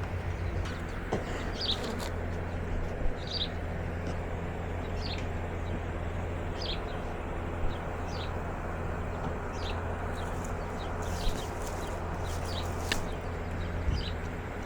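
A bird calling over and over, short downward-sliding chirps roughly every second and a half, over a steady low background rumble.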